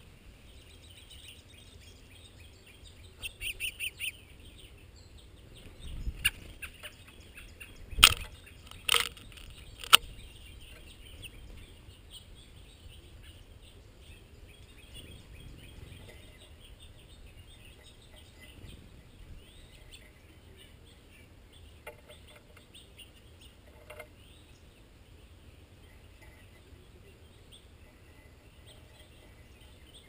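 Small songbirds at a bird bath: a quick run of about four high chirps a few seconds in, then three loud, sharp noises about a second apart near the middle. Faint scattered chirps the rest of the time.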